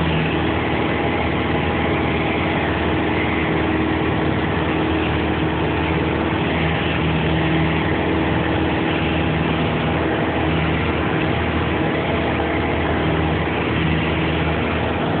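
Light aircraft's engine and propeller drone as heard inside the cockpit, loud and steady with a constant pitch.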